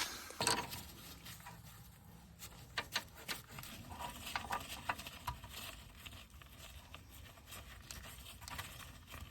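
Light, irregular clicks and taps of metal parts being handled and fitted together, with no steady rhythm.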